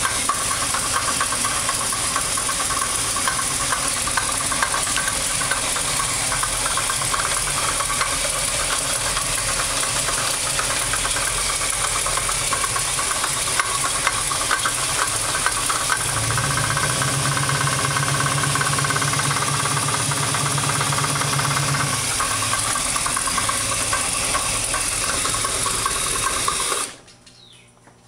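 Oldsmobile 455 big-block V8 running with a steady, rapid knock that came on recently in a fresh engine build; the cause is unknown to the owner. A deeper note joins in for several seconds past the middle, and the sound cuts off suddenly near the end.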